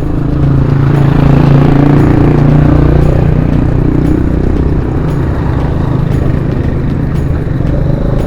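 A motor vehicle's engine running close by on the road, with a steady low hum that is loudest about one to three seconds in, over the rush of road and wind noise on the moving bicycle.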